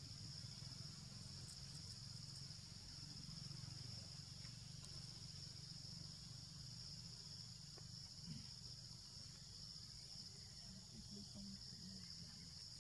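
Faint, steady high-pitched drone of insects, with a low background rumble beneath it and a couple of brief faint low sounds about two-thirds of the way through.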